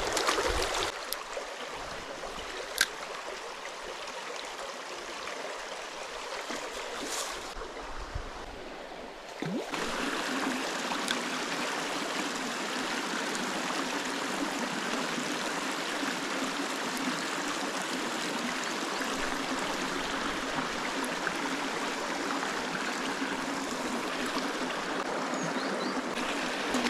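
Stream water running steadily, an even rushing, with one sharp click about three seconds in and a short duller, quieter stretch about eight seconds in.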